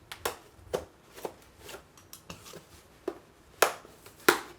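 Cardboard shipping box being opened by hand: packing tape and cardboard flaps crackle and snap in a string of sharp, irregular clicks, about two a second, with the loudest two near the end.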